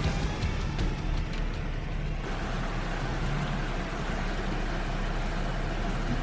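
Off-road vehicle driving on a trail: steady engine and tyre noise, turning more hissy about two seconds in.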